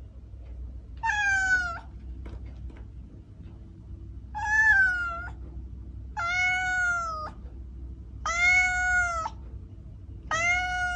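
Domestic cat meowing five times, each meow drawn out for about a second, roughly two seconds apart.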